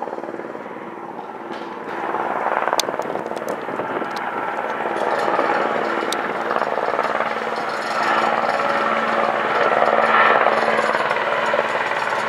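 Aerospatiale AS332L1 Super Puma twin-turbine helicopter flying in close on approach. Its rotor and turbine noise grows louder as it nears.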